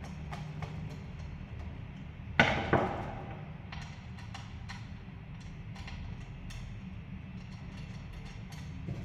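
Scattered light clicks and taps over a steady low hum, with two sharp knocks close together a couple of seconds in, the second ringing briefly.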